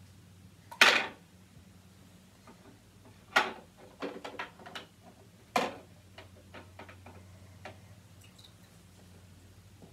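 Small test objects knocking and clinking against a clear container of water as a child handles them during a sink-and-float test. There are a handful of sharp knocks: one about a second in, then a cluster between about three and six seconds.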